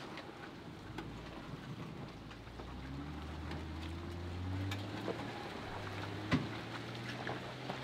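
Jeep Gladiator crawling over a rock ledge in low range: its engine drones low and revs up slowly a few seconds in, while gravel and rock crackle under the tyres. A single sharp knock about six seconds in.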